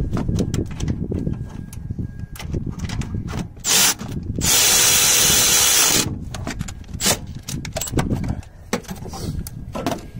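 A handheld power tool, such as a cordless drill or driver, gives a short burst and then runs for about a second and a half, driving an alternator mounting bolt home. Clicks and knocks from tools and parts being handled come before and after it.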